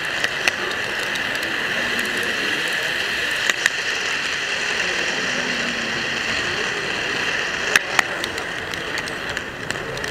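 An N-scale model train running along its track, heard from a camera riding on board: a steady hiss of wheels and motor, with a few sharp clicks, two of them close together about eight seconds in.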